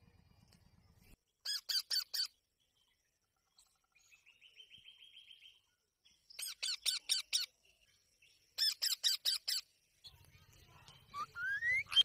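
Parakeets calling: three runs of shrill, rapidly repeated screeching calls, with a softer trill between the first two and a rising whistle near the end.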